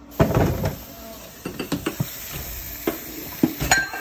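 Tap water running in a steady hiss into a plastic basin as peeled potatoes are washed and handled, with a loud clatter near the start and scattered knocks after it.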